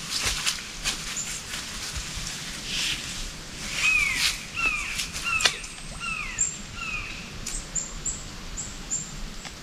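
Footsteps and rustling on leaf-covered ground, then a bird calling a string of about six downward-slurred notes, with thin high chirps from another bird near the end.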